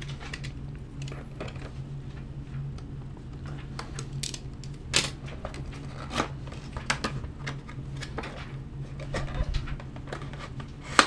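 Cardboard retail box being cut and opened by hand: scattered clicks, scrapes and rustles of paperboard over a steady low hum.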